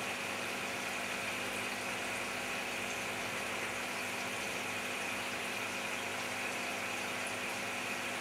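Aquarium air pump running the tank's sponge filters: a steady hum with a hiss over it that does not change.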